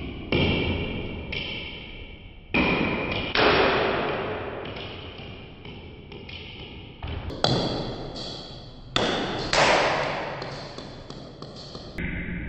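Ping-pong ball hits, from the paddle striking it and the ball bouncing on the table, heard as a series of sudden dull thuds that each fade away slowly over a second or two. The long tails fit replay audio that has been slowed down.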